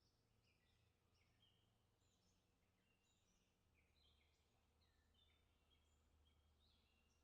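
Faint chorus of songbirds: many short chirps and quick whistled notes from several birds overlapping throughout.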